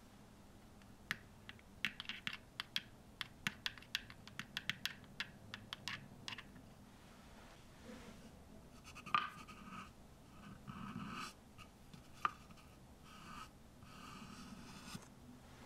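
A tiny spoon clicking and scraping against small scalloped cups in quick, light taps, then scratchy rustling of a small piece of paper being handled and pressed onto a wooden tabletop, with one sharper tap partway through.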